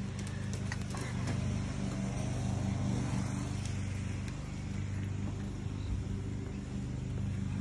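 A motor running with a steady low hum, with a few faint ticks in the first second.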